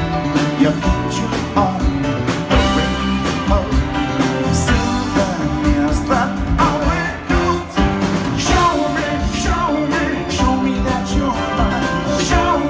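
A live band playing an upbeat pop-rock song, with drums, electric guitars, bass and keyboards, and a man singing lead into a microphone.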